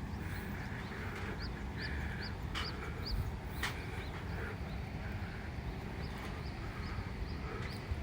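A small bird gives a run of five short, high chirps, about two or three a second, with fainter chirps later on, over a steady low rumble.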